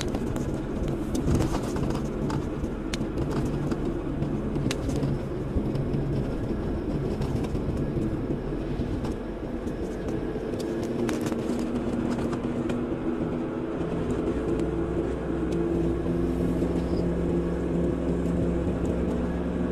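Car engine and road noise heard from inside the car while driving slowly in traffic, a continuous low hum that settles into a steadier drone in the second half, with a few faint clicks and knocks.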